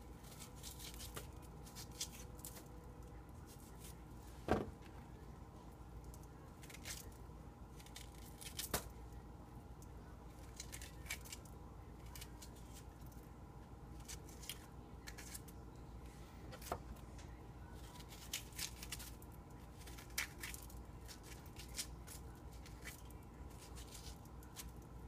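Metal spoon scraping the seeds out of raw zucchini halves: faint, irregular scrapes and small clicks, with one sharper knock about four and a half seconds in, over a steady faint hum.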